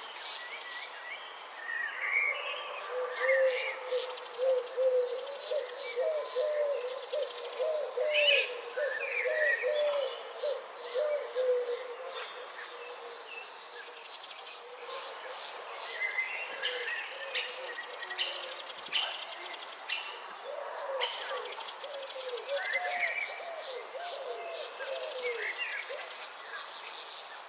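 Garden nature ambience: a steady high-pitched insect trill that stops about two-thirds of the way through, over scattered bird chirps and a rapid series of lower wavering calls.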